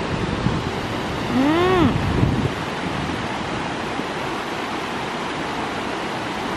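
Water rushing over a low dam spillway and rock ledges, a steady rushing noise. About a second and a half in, a short call rises then falls in pitch.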